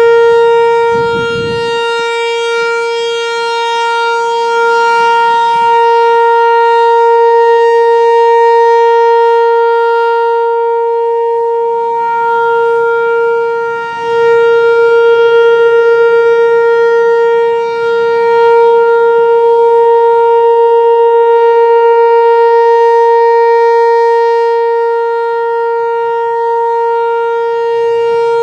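Whelen Vortex R4 electronic outdoor warning siren sounding a steady, unwavering tone during a test, its loudness slowly swelling and fading.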